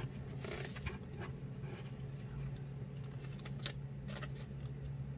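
A few brief crinkles and ticks of a thin clear plastic card sleeve being handled as a trading card is slid into it, over a steady low hum.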